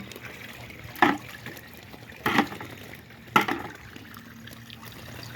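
Three short sharp plops, about a second apart, as pond snails are dropped into a bucket of water, over the steady trickle of the pond draining.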